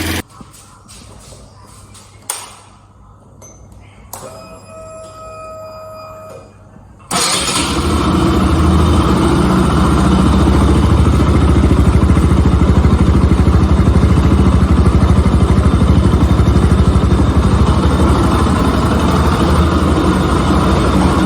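Bajaj Pulsar RS200's single-cylinder engine starting about seven seconds in after a quiet stretch with a click, then idling steadily with an even pulse. Its tappets have just been reset, and the owner says it no longer makes the tappet noise it had before.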